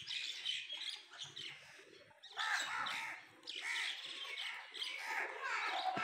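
Pet parrot chirping softly in several short bursts.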